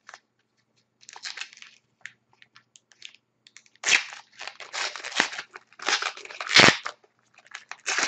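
A trading-card pack wrapper crinkling and tearing as hands work it open, in irregular bursts that grow louder in the second half. The wrapper is stubborn and does not open properly.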